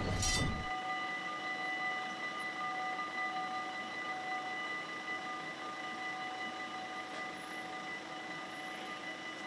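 Dutch railway level-crossing warning bells ringing, a steady high ring that keeps going while the barriers lower, signalling an approaching train.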